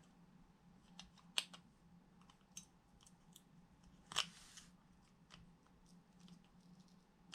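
Handling noise of a small plastic remote control: half a dozen scattered small clicks and taps, the loudest about one and a half and four seconds in, over a faint steady low hum.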